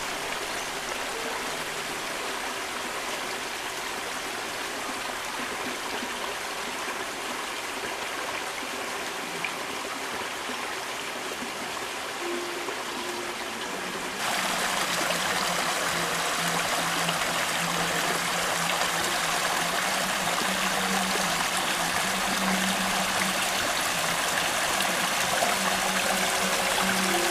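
Small hillside stream running and trickling over stones and through grass. About halfway through, the water suddenly gets louder and brighter, and it stays that way.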